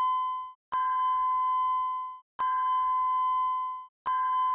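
Alert tone of the plant's emergency alarm system: a steady single-pitched electronic beep, repeated in long beeps of about a second and a half with short breaks between them. It is the 'alerta' signal, the warning tone as distinct from the evacuation tone.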